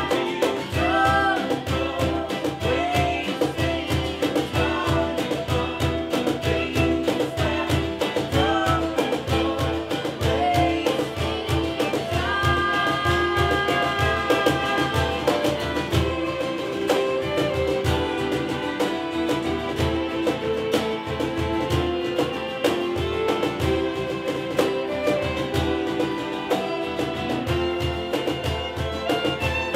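Live acoustic band playing a song: strummed acoustic guitars keeping a steady rhythm, violins, and singing voices.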